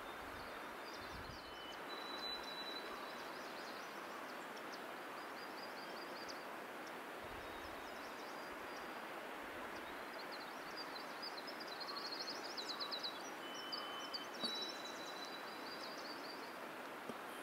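Steady outdoor background hiss with small songbirds singing faint high chirps and quick trills, busiest a little past the middle. A few low rumbles come through near the start and about a third of the way in.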